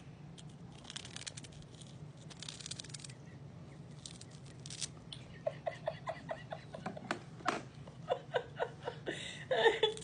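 A kitten crunching and chewing a cheese puff: fine crackling crunches, then a run of small chewing clicks at about two to three a second. A brief voice near the end.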